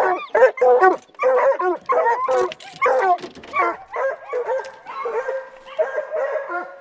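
Several hunting hounds barking and bawling in quick, overlapping calls, then a few longer drawn-out bawls that grow fainter: the hounds are opening on a fresh track they have struck, which the hunters take for a bear's.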